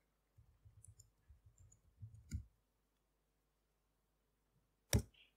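Faint keystrokes on a laptop keyboard as a short command is typed, then one sharp click about five seconds in.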